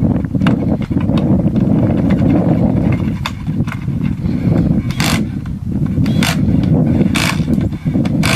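Steady wind rumble on the microphone, with scattered clicks and about three short, hissing bursts in the second half from pit crew tools working on the dirt bike's wheels.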